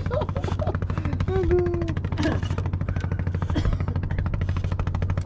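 Wooden fishing boat's inboard engine running steadily underway, a fast, even putter.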